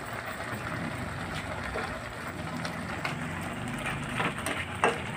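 Pan of vegetable stew simmering on a gas burner, a steady bubbling hiss, with a few light clicks of a metal ladle against the pan in the last couple of seconds.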